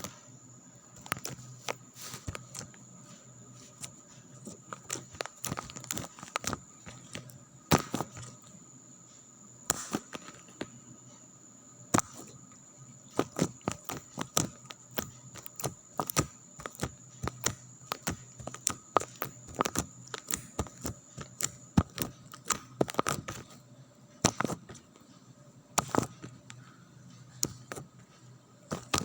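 Slime being squeezed and stretched by hand, making irregular sticky clicks, pops and crackles in quick uneven runs, over a faint steady hum.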